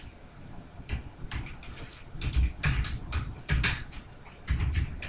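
Computer keyboard being typed on: a string of irregular key clicks with soft low thuds, in small runs.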